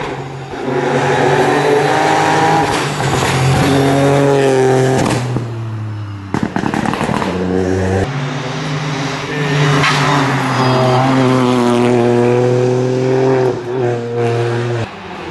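Rally car engine revving hard through a tarmac bend, its pitch climbing and dropping with gear changes. About six seconds in, the exhaust crackles and pops as the throttle is lifted.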